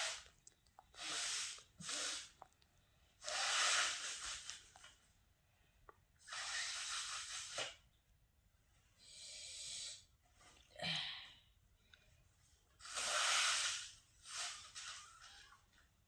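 A person blowing their nose and sneezing: a series of about eight forceful, noisy blasts of air through the nose, most about a second long, with short pauses between them.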